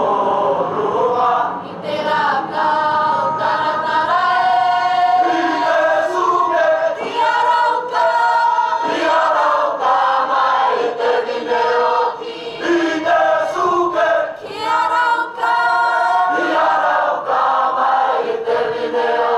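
A Cook Islands school group singing a song together as a choir, several voices in parallel lines.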